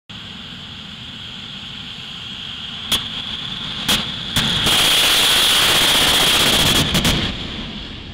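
Jet dragsters' GE J85 afterburning turbojets. A steady high turbine whine builds, broken by sharp bangs about a second apart as the afterburners pop. Then comes a very loud, continuous afterburner blast for about three seconds as they launch, and it fades as the cars pull away down the track.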